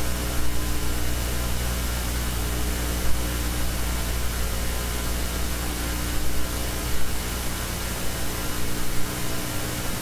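Steady electrical hum under a constant hiss.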